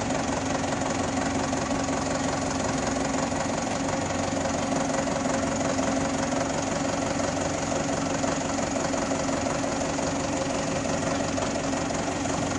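Forklift engine running steadily at low speed as the forklift creeps forward with a load on its forks.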